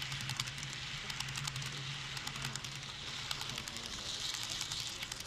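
Model freight cars rolling past close by, their wheels clicking rapidly and irregularly over the track, over a low steady hum. The rolling sound starts to tail off at the very end, as the last car, a caboose, goes by.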